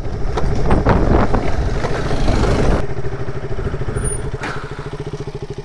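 Sport motorcycle engine running while riding over a rough dirt track, with wind and tyre noise. About three seconds in the rough noise drops away and the engine settles to a steady idle as the bike comes off onto tarmac and slows to a stop.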